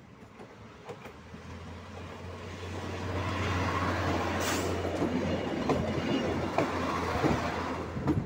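A ČD class 810 diesel railbus and its trailer car pass close by. A steady low diesel drone builds as the railbus approaches, then sharp wheel clicks sound over the rail joints as the cars go past.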